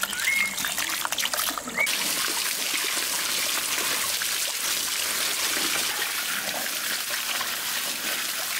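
Tap water running in a steady stream and splashing onto vegetables as they are rinsed by hand. First it falls on peeled potatoes in a glass bowl; from about two seconds in it pours onto tomatoes and onions in a wicker basket, a steady splashing.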